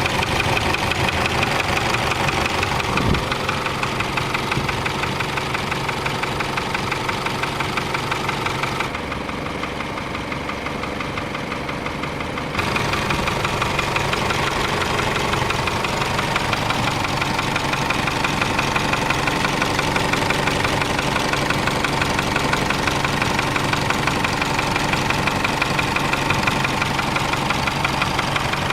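Isuzu D-Max pickup engine running at idle, with a fast, even ticking running through it: the noise problem the owner is showing. About a third of the way in, the sound turns duller and a little quieter for about four seconds, then returns.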